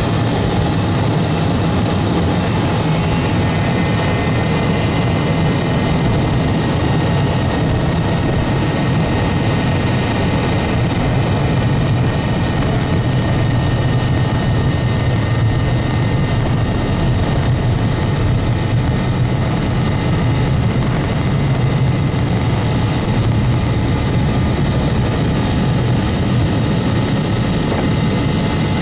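Corporate jet's Honeywell TFE731 turbofan engines at high power during the takeoff roll, heard from inside the cabin: a steady loud rumble with a constant high turbine whine.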